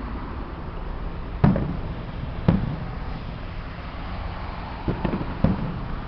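Fireworks shells bursting at a distance: four sharp bangs with short low rumbles after them, the loudest about a second and a half in and the last two close together near the end, over a steady low background rumble.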